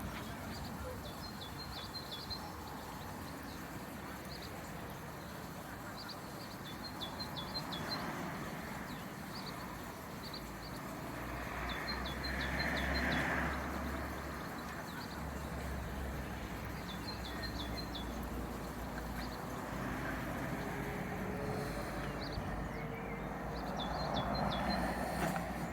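A small bird repeats a short, high chirping phrase every few seconds over a steady low rumble.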